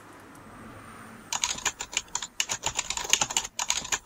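Fast run of crisp keyboard-typing clicks, starting a little over a second in and lasting about three seconds, each click the same: a typing sound effect put under an on-screen caption.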